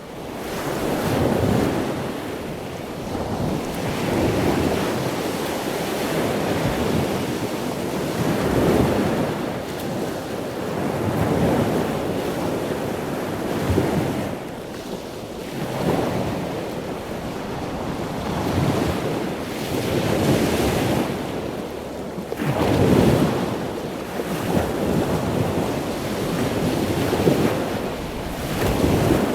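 Ocean surf washing onto a shore, a steady rush of water that swells and falls back every few seconds as the waves break.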